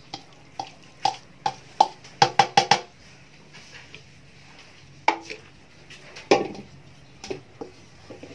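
Spatula knocking and scraping against a stainless steel mixing bowl as sauced macaroni is scraped out into a foil tray: a dozen or so sharp taps, some ringing briefly, with a quick run of them about two seconds in.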